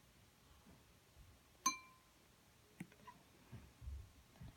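Quiet room tone broken by a light clink with a brief ringing tone, then a fainter tap and a few soft low knocks of things being handled.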